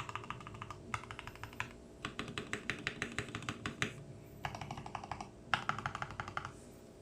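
Typing on a Tecware B68 mechanical keyboard with Gateron Pro Milky Yellow linear switches lubed with Krytox 205g0, dampened with PE foam, tape and O-ring mods: bursts of fast keystrokes separated by short pauses, stopping near the end. A faint low hum runs underneath.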